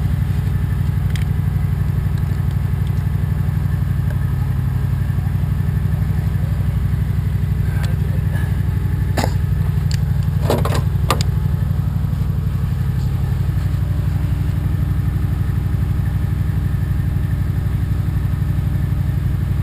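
A motor running steadily, a low drone with a fast even pulse, with a few short clicks and knocks about nine to eleven seconds in.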